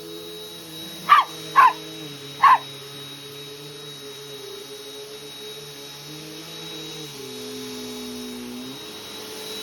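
Dog barking three sharp times in quick succession at a running vacuum cleaner, whose steady motor hum carries on underneath and changes pitch a few seconds later.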